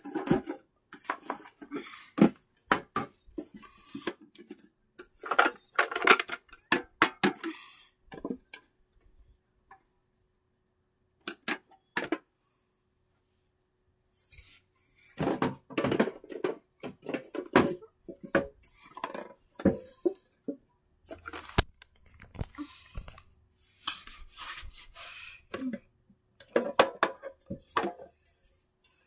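Plush toys handled and shifted about on metal tins: clusters of knocks, taps and rustles, with a still stretch of several seconds near the middle.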